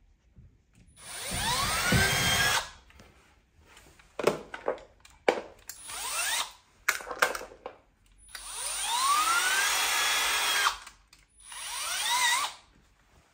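Milwaukee cordless drill boring into a plaster wall, running in three bursts, each spinning up with a rising whine; the last is short and uneven. Sharp clicks and knocks of handling come between the first and second runs.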